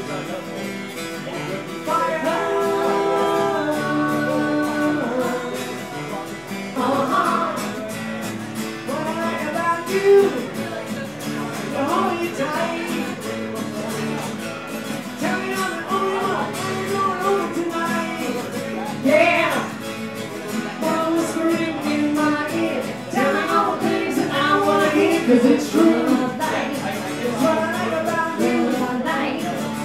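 Two acoustic guitars strummed together under singing, a duo performing a pop-rock song.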